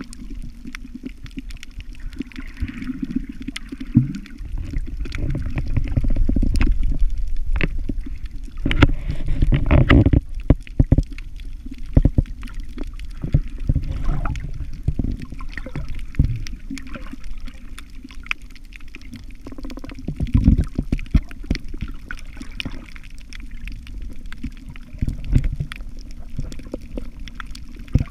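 Underwater camera audio while snorkeling: a muffled low rumble of moving water, with many scattered sharp clicks and crackles. There are a few louder surges, strongest about ten seconds in and again around twenty.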